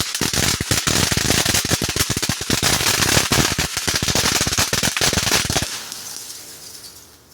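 Large consumer firework going off in a rapid, dense string of cracks and pops, then thinning to a fading crackling hiss about six seconds in.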